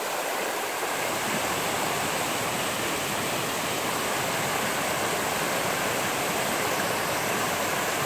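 Rocky rainforest stream running fast over boulders in small white-water rapids: a steady, unbroken rush of water.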